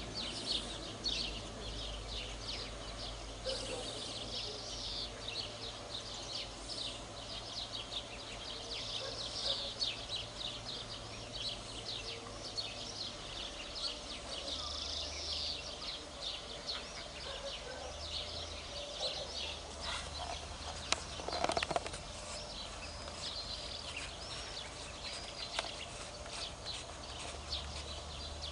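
Small birds chirping and singing continuously in quick, high notes, over a low steady rumble.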